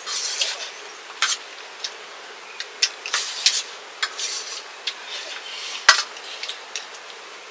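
Metal dishes and utensils clinking and scraping in irregular short strokes, with one sharper clink just before six seconds in.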